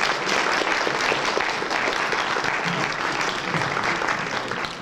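Audience applauding: dense, steady clapping from a roomful of people, beginning to fade near the end.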